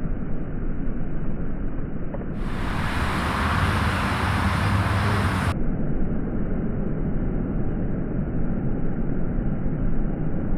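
Thunderstorm noise: a steady, low rushing and rumbling with wind on the microphone. A brighter hiss comes in for about three seconds from just past two seconds in.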